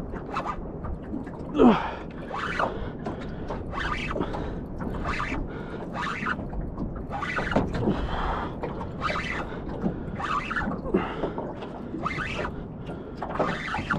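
An angler breathing hard in short gasps and grunting with effort while pumping a heavily bent rod against a large fish, over steady wind and water noise.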